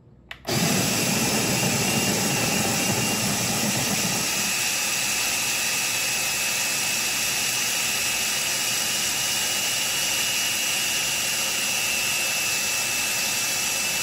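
OXO Brew conical burr coffee grinder starting with a click of its power button and running at a coarse setting. For the first few seconds the burrs crunch through a small batch of beans. Once the beans are used up, at about four or five seconds, the motor runs on empty with a steady high whine.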